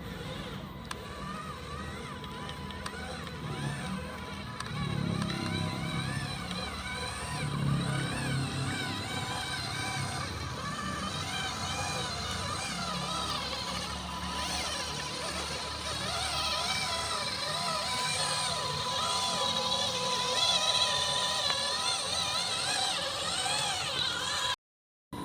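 Electric motor and gearbox of a radio-controlled Hino 500 dump truck whining, the pitch rising and falling quickly and continuously as the throttle is worked.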